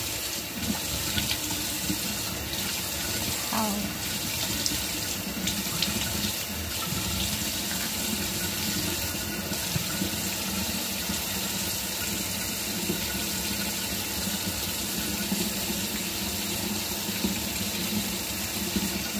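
Bathroom sink tap running steadily while water is splashed onto the face and hands are rinsed under the stream.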